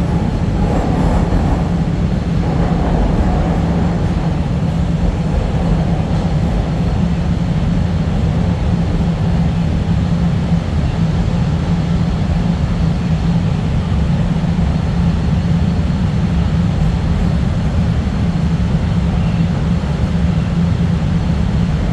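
CTA Blue Line subway train running, heard from inside the car: a steady rumble of wheels and motors with a constant low hum.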